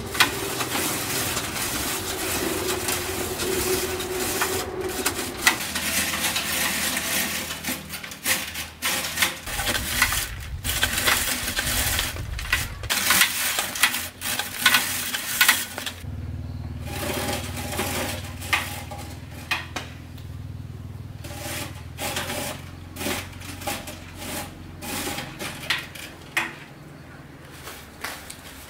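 Cassava root being shredded on a rotary grater, a spinning drum of punched metal: a continuous metallic rasping and scraping thick with small clicks. It is loud through the first half and turns quieter and more broken, with scattered scrapes, from about halfway.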